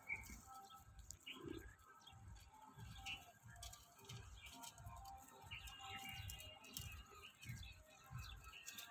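Faint, scattered chirping of small birds, with a low uneven rumble underneath.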